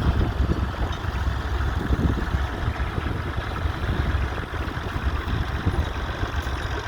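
Fordson Super Dexta's three-cylinder diesel engine running steadily with a low rumble.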